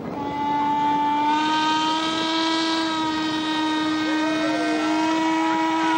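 Steam whistle of the paddle steamer Uri giving one long blast of about six seconds, several tones sounding together as a chord, which cuts off abruptly; a few of the middle pitches waver near the end.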